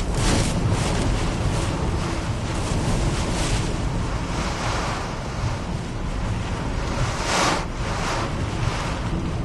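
Hurricane-force wind and driving rain heard from inside a car, with a steady low rumble of wind on the microphone. The rain hiss surges louder in gusts just after the start and again about seven and a half seconds in.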